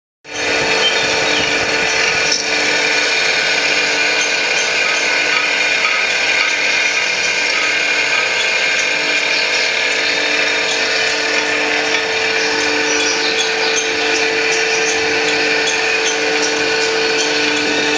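Camshaft copying machine running: its motor and cutter spin up abruptly and run steadily with a constant whine.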